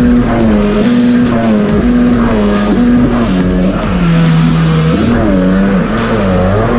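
Loud soundtrack music: held bass notes stepping between fixed pitches, with a regular beat about once a second.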